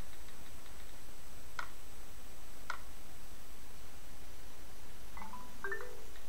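Steady low hum and hiss of an open microphone, with two sharp clicks a second apart and a few short high chirps near the end.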